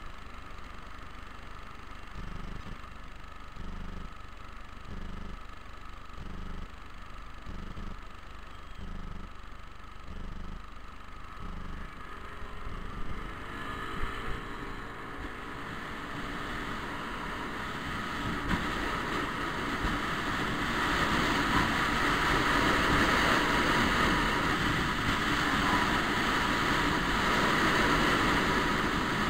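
Scooter waiting at traffic lights with a soft pulse about once a second, then pulling away: a rising whine about halfway through, followed by wind and road noise that grows louder as it picks up speed.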